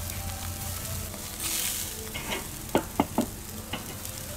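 Food sizzling on a charcoal barbecue grill while metal tongs lift grilled courgette slices off the grate, with a brief louder hiss about a second and a half in and three sharp clacks about three seconds in.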